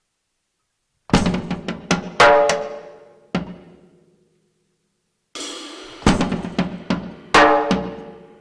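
Drum kit played in two short runs of loud hits with ringing cymbals, the first about a second in and the second past the middle, with a brief pause between them.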